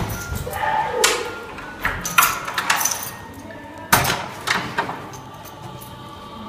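A key and door handle being worked to unlock and open a door: a series of clicks and knocks, the sharpest about four seconds in.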